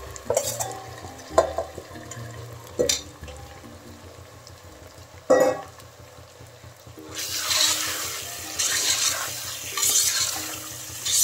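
Marinated mutton sizzling in hot oil with fried onions in a pressure cooker, with a few sharp knocks of utensils against the pot in the first half. From about seven seconds in, the sizzle rises in waves as the meat is stirred with a slotted spoon.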